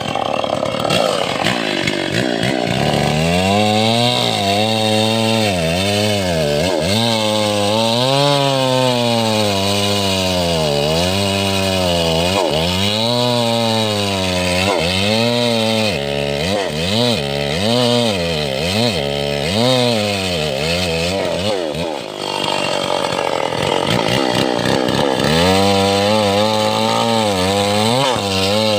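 Long-bar chainsaw cutting through teak, its engine pitch rising and falling every second or two as the chain bites and frees in the wood. It eases off briefly about 22 seconds in, then runs on again.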